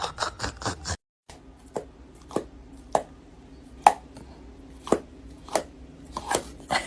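Sharp taps or knocks: a quick run of them, then after a brief break single knocks about one every half second to second, over a faint steady hum.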